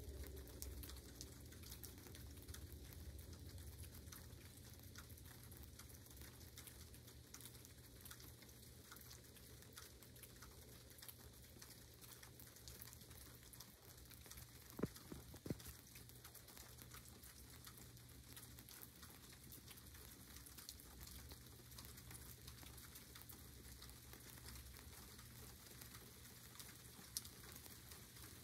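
Light sprinkling rain, a faint steady patter, with a few sharper ticks: two close together about halfway through and one near the end.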